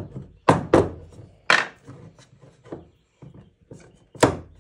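Rifle stock parts being pushed and worked into place, giving a series of sharp, irregular knocks and clacks, about five in all, the loudest right at the start and again about four seconds in.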